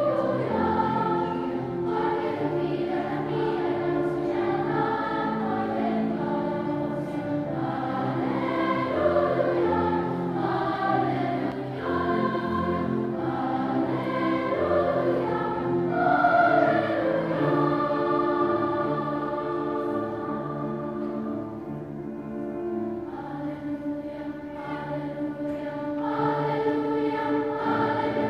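Large children's choir of elementary-school singers performing a song, with a softer passage about two-thirds of the way through and swelling again near the end.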